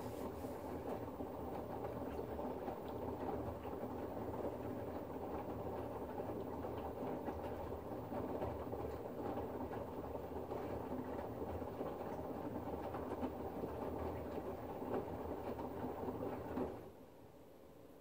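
LG front-loading washing machine drum turning and tumbling a load of wet laundry, a steady churning with a low motor hum during the 60°C Staincare wash. Near the end the drum stops and the sound drops away suddenly.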